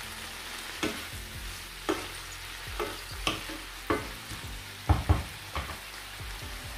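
Prawns and flowering cauliflower sizzling in a nonstick frying pan while a wooden spatula stirs them, knocking and scraping against the pan about once a second; the loudest two knocks come close together about five seconds in.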